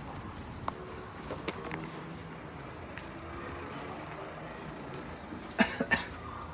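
Passenger lift travelling, with a steady low mechanical hum. A few sharp knocks come near the end.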